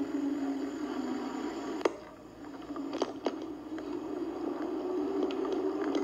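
Car's road and engine noise from dashcam footage, played back through computer speakers as a steady low drone. A sharp click comes about two seconds in and two more a second later.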